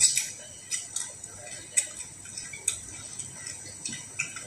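Eating by hand: sharp, short clicks from mouth smacks while chewing fried small fish and rice, about five of them at irregular intervals. The loudest comes right at the start, as a mouthful goes in.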